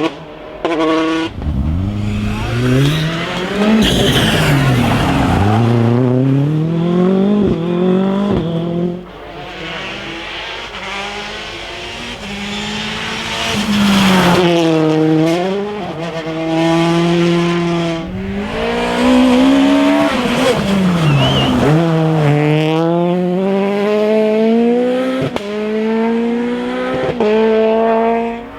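Rally cars at full speed on a special stage, one after another: engines revving up through the gears in rising steps, dropping sharply on the brakes and downshifts, then pulling away again as they pass. A few sharp pops late on.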